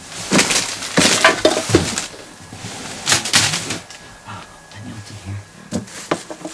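Someone rummaging hurriedly through clutter by hand: rustling and clattering in several loud bursts, the strongest about a second and three seconds in.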